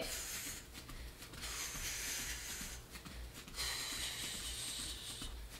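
A person breathing hard through a lapel microphone during lateral hops: two long, hissing breaths, the first about a second and a half in, the second near the middle.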